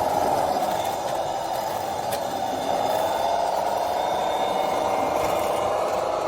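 Steady whine of a radio-controlled construction machine's electric motor, dropping a little in pitch about a second in and picking up again with a jump in level about two and a half seconds in, as it works under load.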